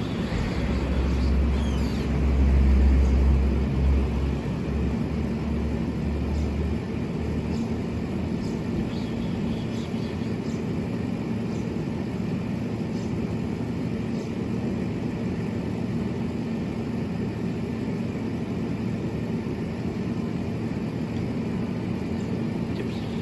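Steady outdoor city background noise with a constant low hum. A deep rumble is loudest two to four seconds in and fades out about seven seconds in.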